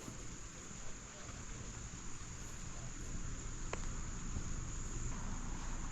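Steady, high-pitched chorus of insects, such as crickets or katydids, shrilling without a break, with one faint click about three and a half seconds in.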